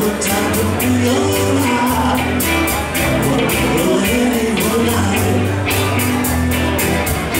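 Live rock band playing: electric bass, electric guitars and a drum kit keeping a steady beat of about four hits a second, with a man singing lead.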